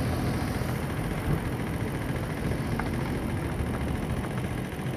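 A vehicle engine running steadily, a low even hum with no sharp bangs.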